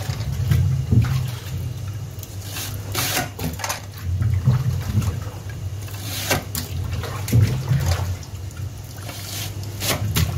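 Lever-action French fry cutter being worked: several sharp metal clanks a second or two apart as the handle drives potatoes through the blade grid. Under them, a steady rush of water in the sink, with the cut fries dropping into it.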